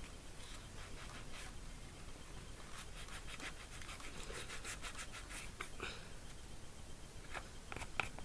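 Hands handling a bicycle inner tube and tyre: faint rubbing and scratching with many small clicks, and one sharper click near the end.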